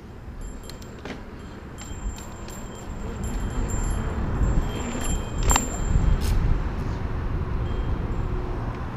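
Mountain bike rolling over asphalt, filmed from the bike: wind rumble on the microphone grows louder as the bike picks up speed about three seconds in, with occasional metallic clicks and rattles from the bike.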